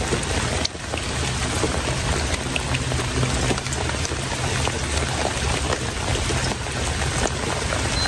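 Steady rain falling: a constant hiss of rain with scattered ticks of individual drops.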